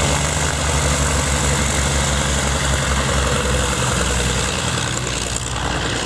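B-17 Flying Fortress's piston radial engines running steadily with a low-pitched drone.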